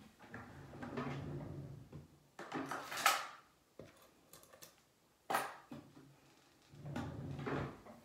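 Small objects being handled in a small tiled room: a few separate bouts of rustling and light clattering, with sharper knocks or clinks near three seconds and again a little after five seconds.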